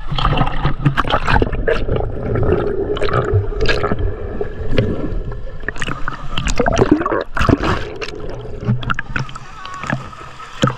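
Water splashing and sloshing, with many sharp short splashes and indistinct voices.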